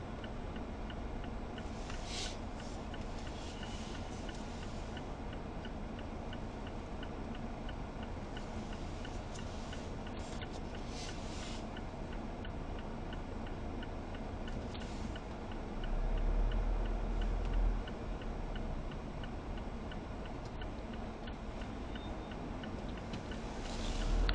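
Car turn-signal indicator ticking steadily inside the cabin over low engine and road noise, with a brief low rumble about two-thirds of the way through.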